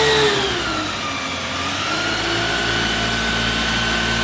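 Isuzu water tanker truck's engine running steadily while driving its water cannon, over a steady hiss. The pitch falls during the first second or so and then holds.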